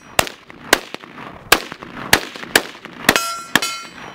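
About seven gunshots in quick succession, roughly two a second. Several are followed by a ringing metallic clang.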